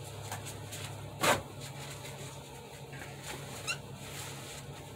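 Steady low hum with one sharp click about a second in, a few faint ticks, and a brief rising squeak near the end.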